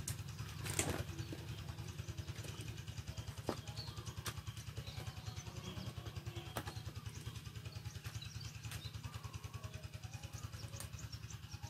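A small engine running steadily in the background with a fast, even throb. Several light clicks and knocks, the loudest about a second in, come from a plastic RC truck being handled and set down on a wooden table.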